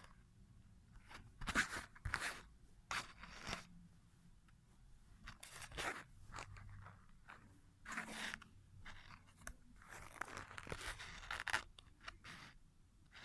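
Paper and card rustling and crinkling as a papercraft model metro train is handled and slid over a fabric bedspread, in scattered uneven bursts, the loudest about a second and a half in and again around eight and eleven seconds.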